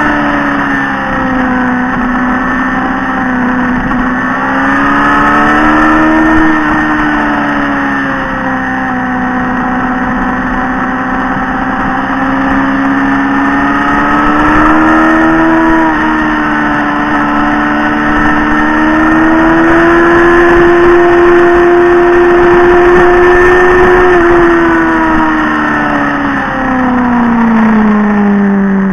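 Motorcycle engine heard from on board while riding, pulling steadily with its pitch rising and falling as the throttle changes, then dropping away over the last few seconds as the rider eases off.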